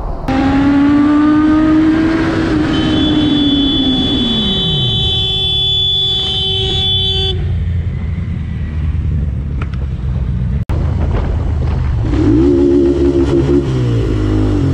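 Motorcycle engine and road noise from onboard riding clips, broken by abrupt cuts. In the first clip the engine note holds and then drops away as the bike slows, with a steady high tone sounding over it for a few seconds. After the cuts, another engine note rises and falls near the end.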